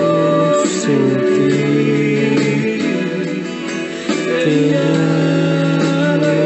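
Spanish-language pop ballad: a voice holds long sung notes over instrumental backing.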